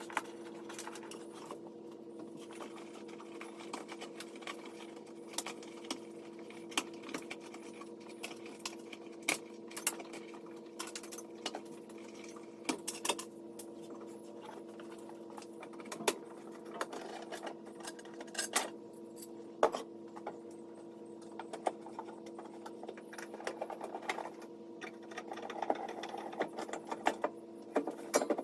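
Scattered sharp clicks and light rattling, the handling of wires, connectors and tools while a car's wiring harness is pulled out, over a steady hum.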